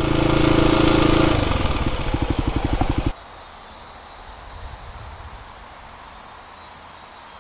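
Motorcycle engine running, then dropping to idle about a second and a half in, its separate firing pulses heard as a quick, uneven beat, until it cuts off abruptly about three seconds in. After that only faint, steady outdoor background remains.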